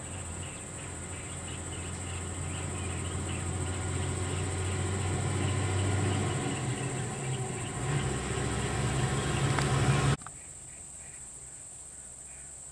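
Diesel engine of a Tata lorry growing louder as it drives up and passes close by, its note shifting lower about two-thirds of the way through, then cut off abruptly about ten seconds in. A steady high insect drone runs underneath throughout.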